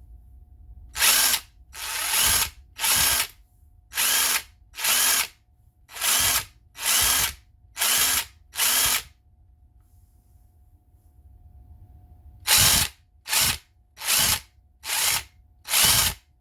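WerkTough brushed cordless impact wrench run in the air in quick trigger blips: about fourteen half-second bursts of the motor spinning up and stopping, with a pause of a few seconds in the middle. The gearing sounds rough and rattly, and the new brushes are still breaking in.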